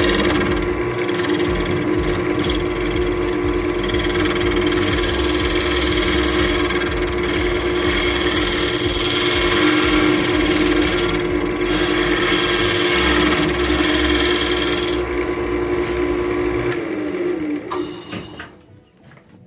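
Wood lathe running with a steady hum while a turning tool cuts the inside of a spalted beech bowl with a rough, scraping hiss. The cutting stops about fifteen seconds in. A couple of seconds later the lathe is switched off, and its hum falls in pitch as it spins down.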